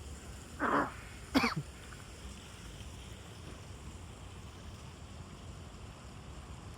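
Two short, harsh animal calls about a second apart, the second ending in a falling pitch, over a steady background hiss.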